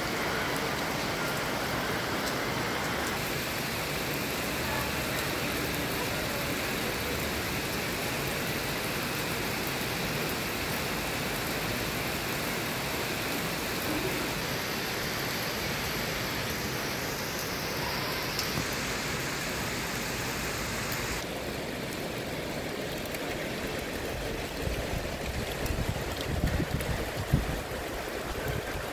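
Steady rain falling on wet concrete pavement, an even hiss of spatter. It turns duller about two-thirds of the way in, and a few low bumps come near the end.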